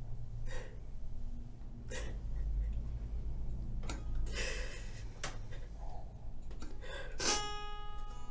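A woman's gasping, sobbing breaths as she weeps. Near the end a single balalaika chord is strummed and left ringing.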